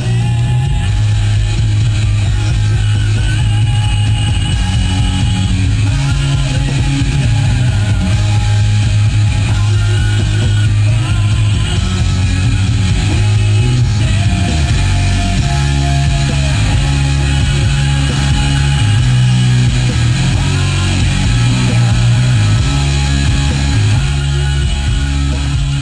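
Rock music with guitar from an FM station, played loud by an aftermarket Sony car stereo through a 1996 Dodge Grand Caravan's factory Infinity amplified speakers, with a strong bass. This is the sign that the aftermarket deck is now driving all the speakers of the Infinity system.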